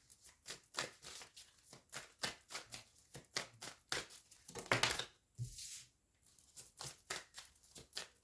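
Tarot cards being shuffled by hand: a quick, irregular run of crisp card snaps and slides, several a second, with a louder flurry about halfway through.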